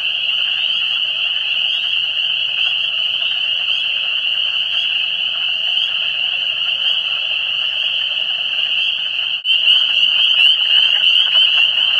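A dense chorus of frogs calling, a steady high-pitched wall of calls. It drops out for a moment about three-quarters of the way through and comes back louder.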